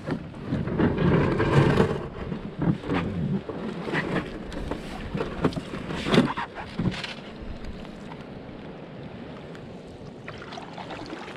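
A canoe launched from a gravel shore: the hull scrapes over stones in the first two seconds, then several knocks and thumps against the hull as the paddler climbs in and settles. Quieter water and paddle sounds follow.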